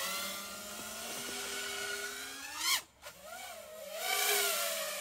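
FPV quadcopter's motors whining in flight, their pitch wavering with the throttle. Just before the middle the whine rises sharply, cuts out almost to silence for a moment, then comes back and wavers up and down.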